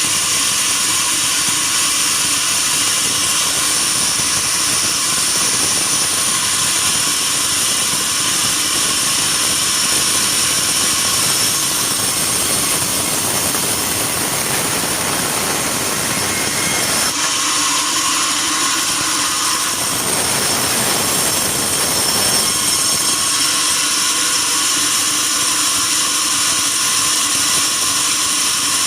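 Sawmill bandsaw running steadily with a loud, high-pitched mechanical whine. Its sound thickens and deepens for a few seconds twice in the second half.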